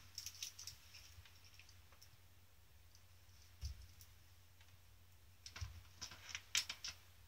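Faint clicking of the small plug connectors on a brushless motor's wires and an ESC's leads being handled and pushed together, a few clicks in the first second and a quick cluster near the end, with one soft knock in the middle.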